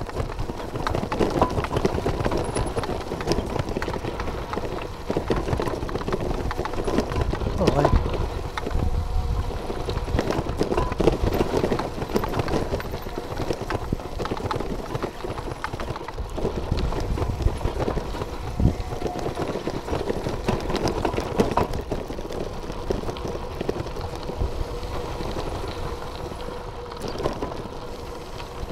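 Bicycle riding over a rough gravel mountain track: tyres crunching and clattering over loose stones and the bike rattling, a constant run of irregular knocks over a low rumble, easing a little near the end.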